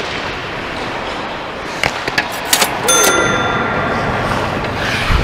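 Ice hockey play in a rink: steady skating and rink noise, a few sharp stick-and-puck clacks about two seconds in, then a metallic clang that rings for about a second.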